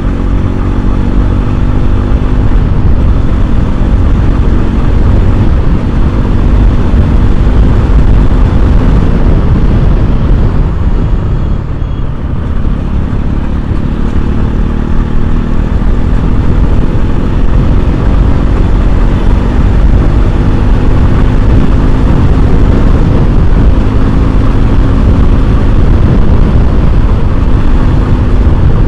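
Bajaj Pulsar NS200's single-cylinder engine running on the move, its note drifting up and down with the throttle, under a heavy steady wind rumble on the microphone.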